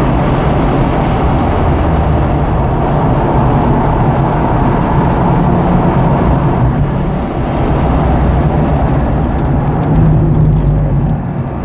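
A 2009 Porsche 911's flat-six engine and road noise heard from inside the car at track speed, the engine running steadily as the car slows hard for a tight corner, with its note changing near the end.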